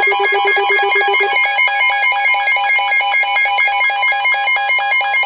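Electronic alert tone of an Emergency Alert System broadcast: a rapid, even beeping of about seven pulses a second. The lower of two pulsing pitches drops out about a second and a half in, leaving the higher one, and a steady tone joins near the end.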